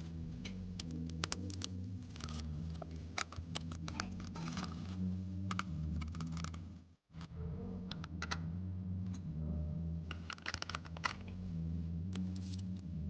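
Clicks, taps and scraping of computer parts being handled and fitted together, over a steady low hum. The sound cuts out completely for a moment about seven seconds in.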